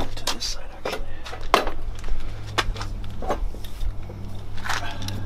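Several sharp clicks and knocks, spaced out, from hand tools and parts being handled at a car's front wheel during brake caliper removal, over a low steady hum.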